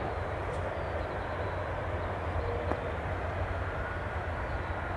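Airbus A330's jet engines running at low power from a distance, a steady low rumble with a faint hiss.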